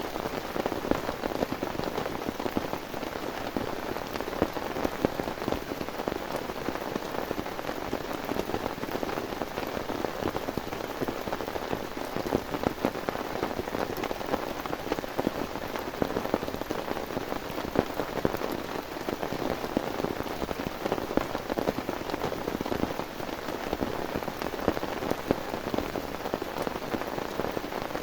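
Heavy rain falling steadily, a dense patter of drops striking a nearby surface.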